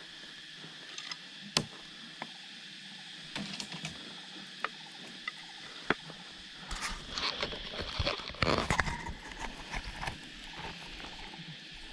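Outdoor forest sound with a steady, faint insect drone. A few sharp snaps or knocks come in the first half, then a burst of crackling and rustling about seven seconds in that lasts a few seconds.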